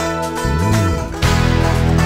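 Instrumental background music with guitar over a steady bass line.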